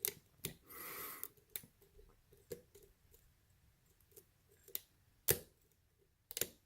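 Faint clicks and light scrapes of a lock pick and tension wrench working the pins of a pin-tumbler lock held in a false set, with the plug being counter-rotated. The clicks are scattered, with a slightly longer scrape about a second in.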